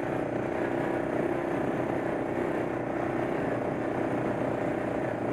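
ATV engine running steadily while riding along a gravel trail, its drone holding an even pitch with no revving.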